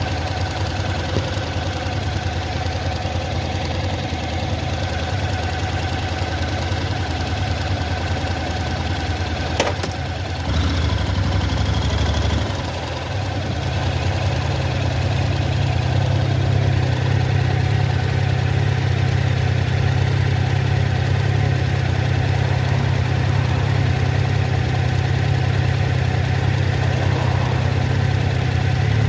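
Motorcycle engine idling, with a sharp click about ten seconds in; the engine then pulls away and runs steadily at low road speed, rising in pitch near the end.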